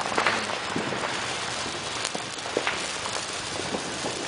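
Small firework spewing sparks: a steady hiss with scattered sharp crackles.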